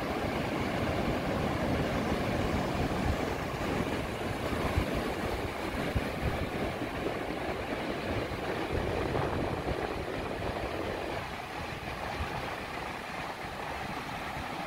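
Ocean surf breaking and washing up a sandy beach: a steady roar of white water with a low rumble, easing a little after about eleven seconds.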